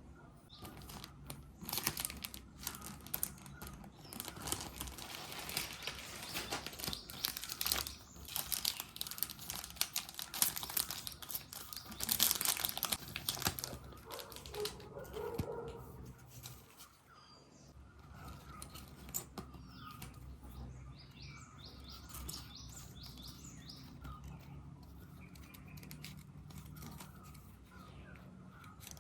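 Packaging being crinkled and torn, in dense crackly bursts through the first half, then quieter handling noises.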